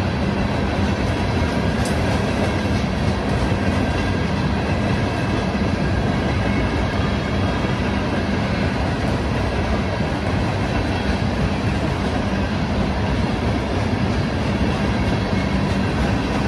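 Loaded ore cars of a freight train rolling past, a steady rumble of steel wheels on the rails with a faint clickety-clack.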